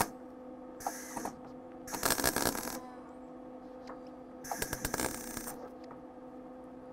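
MIG welder arc on thin car-body sheet steel, laying short bursts to fill a small hole that burned through: three crackling bursts, at about one, two and four and a half seconds in, the last two about a second long, over a steady hum.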